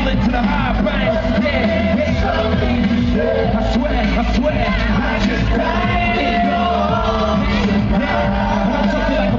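Loud live pop music with singing over a steady backing track.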